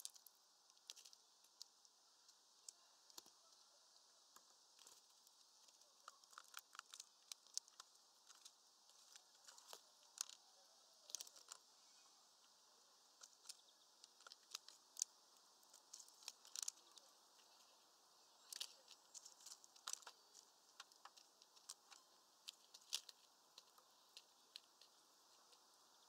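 European greenfinches pecking at a mesh bag feeder: faint, irregular sharp clicks and crackles of beaks working at the seed and netting.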